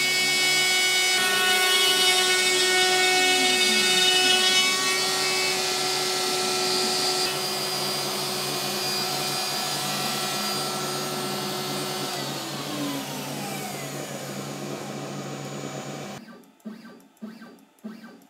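A DeWalt router on an X-Carve CNC machine runs with a high whine while cutting circular holes in a wooden blank, with a dust extractor running alongside. About twelve seconds in, the whine falls steadily in pitch as the machine is shut down. Near sixteen seconds the remaining noise cuts off suddenly, and a few knocks follow.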